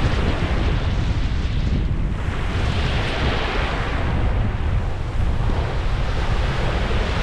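Strong wind buffeting the microphone in a heavy rumble, with Lake Superior surf washing on the shore behind it; the surf hiss swells louder in the middle.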